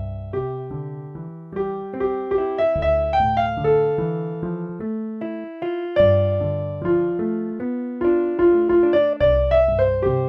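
Piano music: a melody of struck notes over low bass notes, each note fading after it is played.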